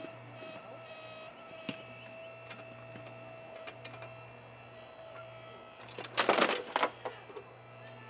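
Homemade electric backhoe's motor running with a steady hum and a constant whine while it digs. About six seconds in comes a loud, rattling burst of dirt and rocks as a bucketful is dumped into the wheelbarrow.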